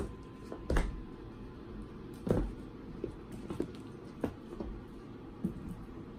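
Scattered soft thumps and light knocks, about one a second, as Balinese kittens scamper and play with a toy on the floor.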